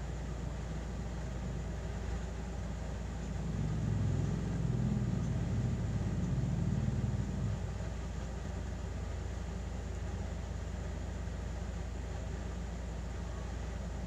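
Steady low background rumble, swelling louder for about four seconds a few seconds in, then settling back.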